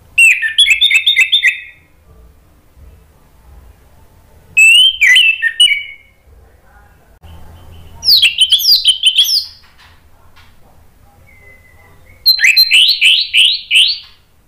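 Orange-headed thrush singing four loud phrases, each a quick run of repeated whistled notes lasting about a second and a half, with pauses of a few seconds between them.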